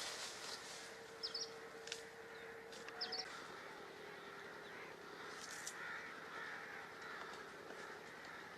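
Birds calling in the open: short, high chirping notes about a second in and again about three seconds in, with a few sharp clicks, over a steady outdoor background.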